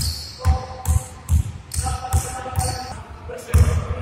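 A basketball dribbled hard on a hardwood gym floor, bouncing about two to three times a second, each bounce echoing in the large hall.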